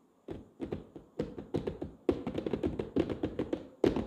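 Fingertips tapping and drumming rapidly on the top of a cardboard box, a fast irregular run of light knocks starting a moment in, played as a test sound for a Boya BY-BM3031 shotgun microphone.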